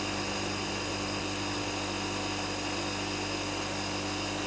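Clarke bench grinder running steadily, its wire wheel brushing rust off a metal drill press cover held against it: a constant motor hum and whine under the scratch of the wire.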